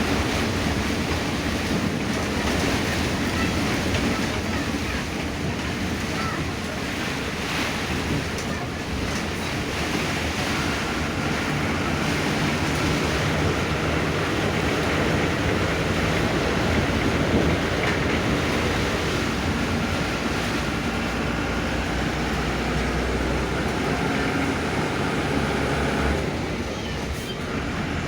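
Heavy rain pouring down in a steady, loud rush. A faint steady hum joins it from about ten seconds in.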